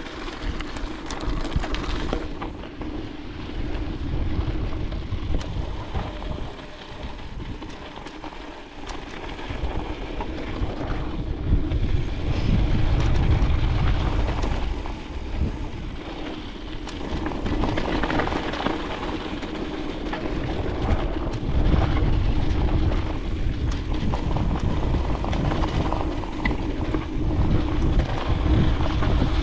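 Mountain bike rolling fast down a dirt trail, heard from a chest-mounted camera: wind buffets the microphone in surges that swell and fade with speed, over a steady tyre hum and frequent short rattles and clicks from the bike.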